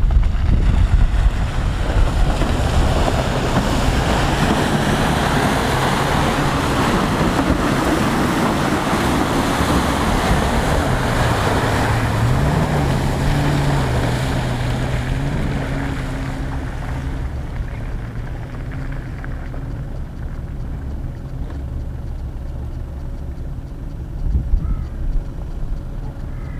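Four-wheel-drive SUV engine working hard as the vehicle ploughs through liquid mud, tyres churning and splashing. Its engine pitch wavers and rises as it passes. The sound fades after about two-thirds of the way through as it drives off, leaving wind buffeting the microphone.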